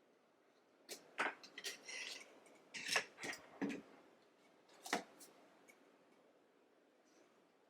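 Hands handling a plastic power strip and its accessories: a handful of light clicks and knocks with some rustling, bunched between about one and five seconds in.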